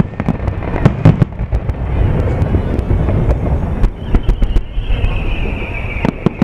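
Aerial fireworks shells bursting in a series of sharp bangs, several close together about a second in and more near the end, over a steady low rumble. A long high whistle slides slowly downward through the second half.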